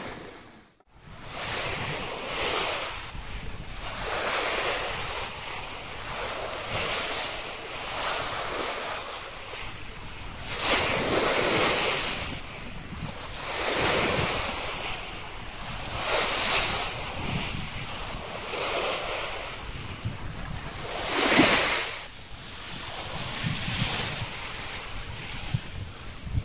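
Bow wave of a 115-foot classic wooden sailing yacht under sail: water rushing and splashing along the hull in surges every couple of seconds as she drives through a choppy sea, with wind buffeting the microphone. The sound drops out briefly under a second in, and the biggest surge comes about 21 seconds in.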